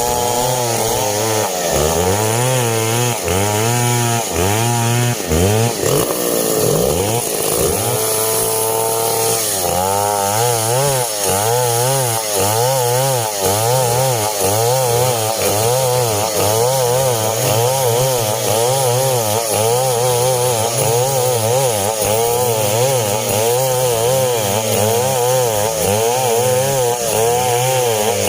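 Two-stroke chainsaw cutting through coconut-palm timber, its engine pitch wavering up and down about once a second as the chain loads in the cut. About seven seconds in it runs briefly at a steady, higher pitch, then drops back into the same cutting rhythm.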